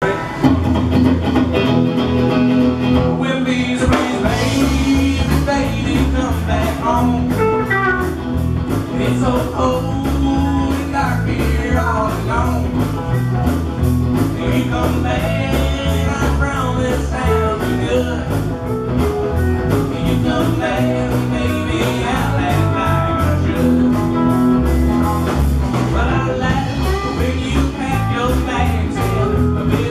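Live blues-rock band playing: two electric guitars over bass guitar and a drum kit, with a steady driving beat.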